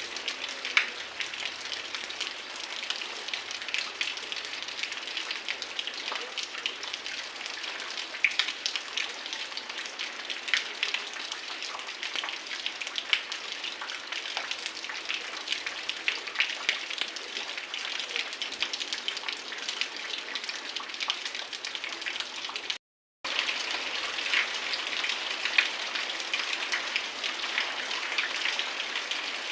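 Heavy rain falling, a steady dense hiss with many sharp close drop hits. The sound cuts out completely for a moment about three quarters of the way through.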